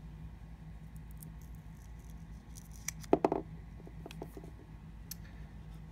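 A small plastic cable clip being handled while its adhesive backing is peeled off: scattered faint ticks, with a short burst of sharp clicks and crackles about three seconds in.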